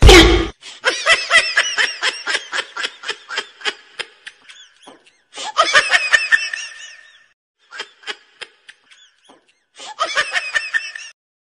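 A person laughing in quick rhythmic 'ha-ha' pulses, about four a second, in several bouts with short silent gaps between. A brief loud burst comes right at the start, louder than the laughter.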